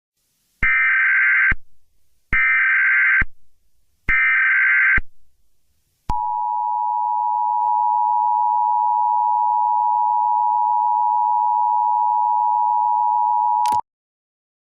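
Emergency Alert System tones: three screechy data bursts of the SAME header, each about a second long, then the steady two-tone EAS attention signal held for nearly eight seconds and cut off sharply. The sequence marks the start of a new emergency alert, here a tornado warning.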